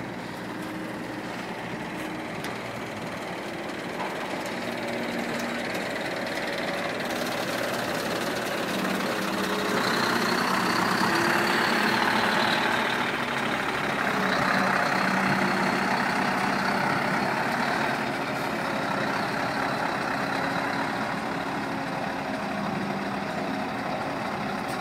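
Scania R620 truck's V8 diesel engine idling steadily, growing louder, with a faint high whine that rises and falls twice in the middle.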